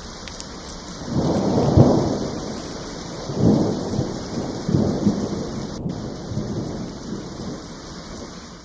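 Steady rain with rolling thunder. A low rumble swells about a second in and is loudest there. Two more rolls come at about three and a half and five seconds, then die away under the rain.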